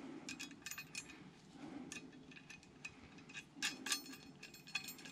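Small steel parts of a weight distribution hitch, its chain and fittings, clinking together as they are handled, in light irregular clicks with a slightly louder cluster about four seconds in.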